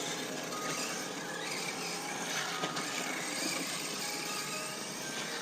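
Arrma Mojave 6S brushless RC truck driving at a distance: short faint bursts of electric motor whine over a steady outdoor background noise.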